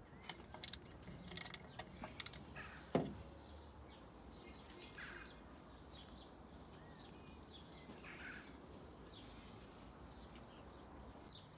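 Quiet outdoor background with faint short bird chirps, and a few sharp clicks and one louder knock, about three seconds in, from work on the car.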